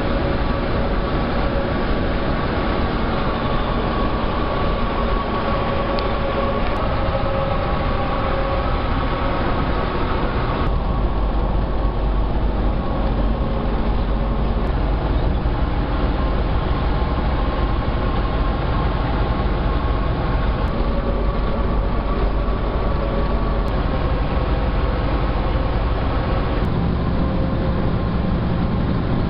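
Semi truck running at highway speed, heard from inside the cab: a steady engine drone and road rumble with a faint steady whine. The sound changes abruptly about eleven seconds in and again near the end.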